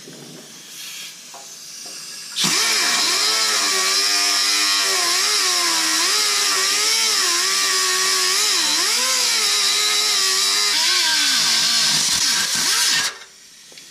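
Pneumatic cutoff tool with an abrasive disc cutting into an exhaust pipe: a loud steady whine whose pitch wavers up and down as the disc bites. It starts about two and a half seconds in, after a fainter hiss, and stops suddenly about a second before the end.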